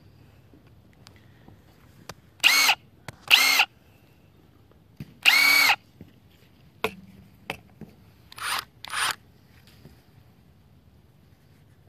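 Cordless brushless impact wrench and impact driver triggered briefly in the air, motors spinning with no load: three short loud whirs, then a few clicks, then two quieter whirs.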